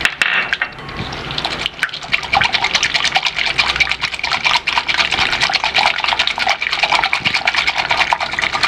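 A whisk beating raw eggs in a glass bowl: fast, even strokes of wet slapping, with the wires clicking against the glass. The beating is uneven at first and settles into a fast, steady rhythm about two seconds in.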